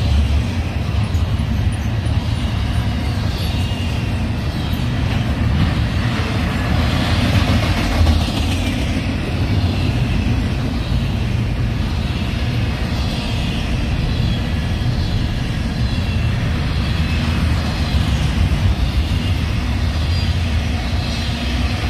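A double-stack intermodal freight train rolling past on the near track: the well cars' wheels rumble and clatter steadily on the rail, swelling a little every few seconds as each car goes by.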